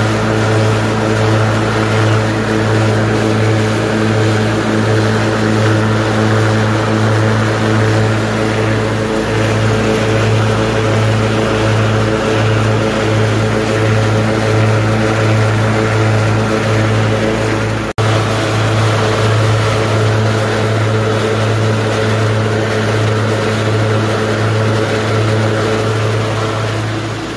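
Cub Cadet LT1040 riding mower engine running steadily at a constant speed, with a strong low hum, while the mower deck is tested on its newly replaced spindle and pulley. The sound breaks off for an instant about eighteen seconds in.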